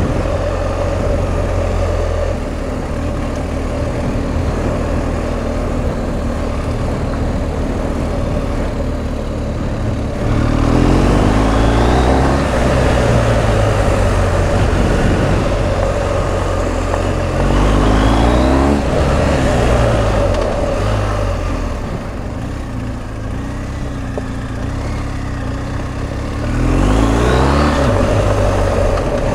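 BMW R1250 GS Adventure's boxer-twin engine running under way, revving up three times, about ten, eighteen and twenty-seven seconds in.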